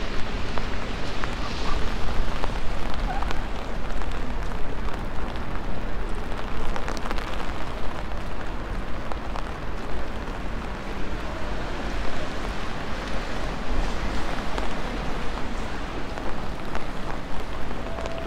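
Steady rain, with a constant low rumble underneath and scattered light ticks.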